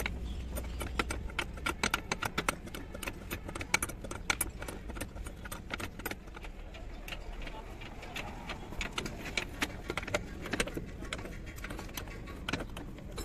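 Small metal parts and a wrench clinking and clicking irregularly as bolts are fitted by hand into a metal floor bracket, with a steady low rumble underneath.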